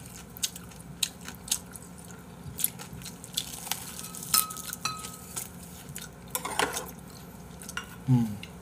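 Eating sounds at a table: utensils clicking and clinking against dishes in many short, irregular taps, one clink ringing briefly about halfway through. A short low vocal sound comes near the end.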